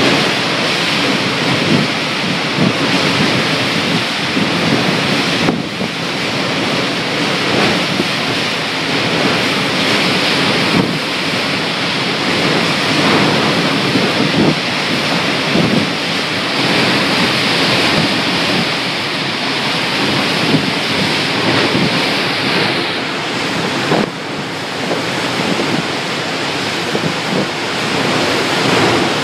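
Tropical-storm wind and heavy rain: a loud, steady rushing noise, with wind buffeting the microphone.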